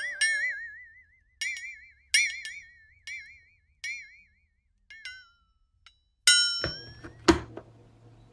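A utensil clinking repeatedly against a glass container, each clink ringing briefly with a wavering tone, with two louder knocks near the end.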